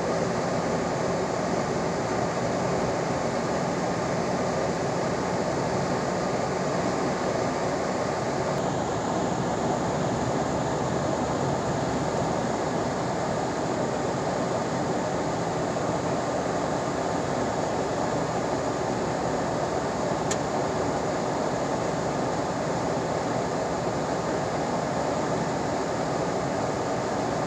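Steady drone of a car driving, heard from inside its cabin: a constant mix of tyre and engine noise.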